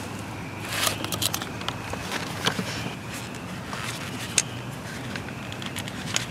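Handling noise from gloved hands working an air-line fitting at the plastic transfer relief valve: scattered clicks and rustling, with one sharp click about four and a half seconds in.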